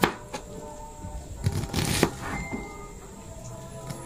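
Knife cutting a white onion on a plastic cutting board: a few irregular knocks of the blade on the board, with fainter ticks between them.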